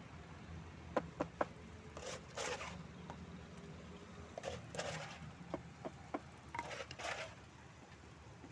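Small metal scoop scraping cement mix across a steel tile mould, three short scrapes spread over several seconds. A few sharp taps come about a second in, with lighter clicks between the scrapes.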